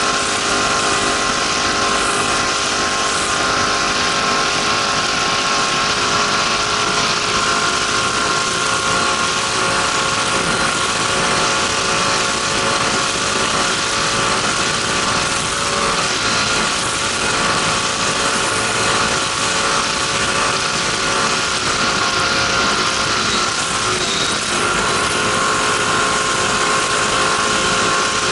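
A racing powerboat's engine running hard at steady high revs, heard on board over the rush of wind and water. The engine pitch shifts slightly about six seconds in, then holds steady.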